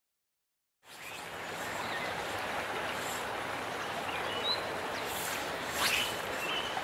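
Small trout stream running steadily, starting about a second in, with a few short high chirps over it.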